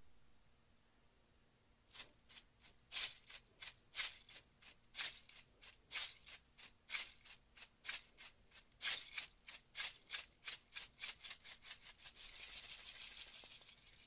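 A deck of oracle cards shuffled by hand: quick, uneven swishing strokes, about two or three a second, starting about two seconds in and merging into a longer steady hiss near the end.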